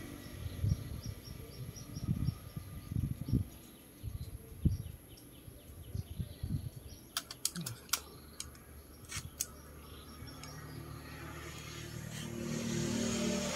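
Parts being handled on a workbench: a run of low bumps, then a cluster of sharp clicks between about seven and nine and a half seconds in. Small birds chirp in the background during the first few seconds, and a vehicle's noise builds near the end.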